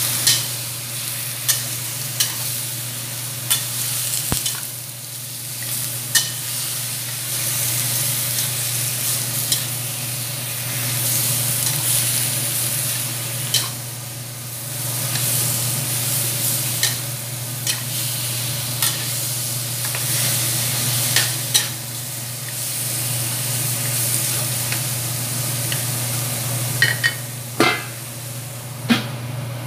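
Duck pieces and crushed ginger sizzling as they are stir-fried in a stainless steel wok, with a metal spatula scraping and clanking against the pan at irregular intervals.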